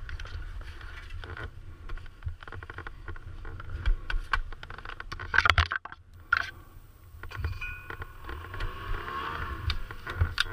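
Scrapes and crunches of a small snow shovel digging in deep snow, over a low steady rumble. A short break comes about halfway through, then more scuffing and handling noise.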